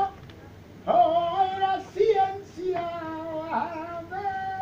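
A male flamenco cantaor singing in a high register, with long held notes that waver and bend through ornamented turns. The voice pauses briefly at the start and comes back in about a second in.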